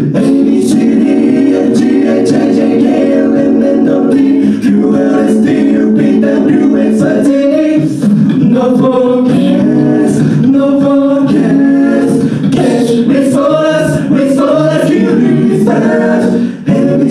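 A cappella vocal group singing live, several voices in sustained close harmony over a low bass line, with short breaks between phrases.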